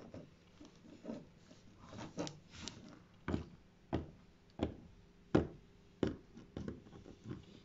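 Plastic toy model horse tapped along a hard floor to mimic walking hoofbeats, a steady series of light taps, about one every two-thirds of a second, getting louder about three seconds in.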